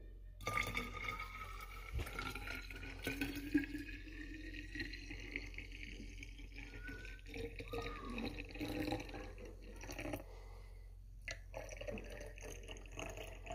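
Hot coffee poured from a glass coffee-maker carafe into a stainless steel vacuum flask. The pour gurgles and splashes, and its note rises steadily in pitch as the flask fills, stopping shortly before the end.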